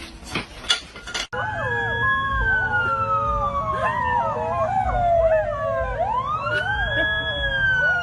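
A siren wailing: one long tone slides slowly down for several seconds, then sweeps quickly back up and holds high. Other wavering pitched sounds run underneath it. A few sharp clicks come before the siren starts, about a second in.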